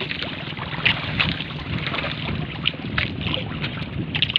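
Wind buffeting the microphone and sea water slapping and splashing against a small wooden outrigger boat, with scattered short sharp splashes or knocks.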